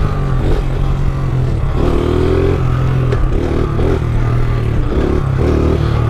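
Pit bike engine pulling under throttle while the bike is held in a wheelie, its note swelling and easing a few times.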